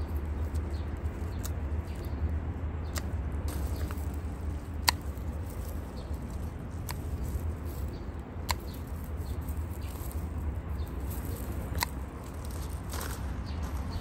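Garden scissors snipping flower stems: about six sharp snips, a second or two apart, the loudest about five seconds in, over a low steady rumble.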